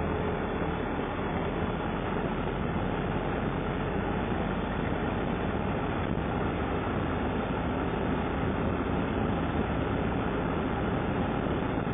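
Steady engine and road noise inside an ambulance cab as it drives along snow-covered streets.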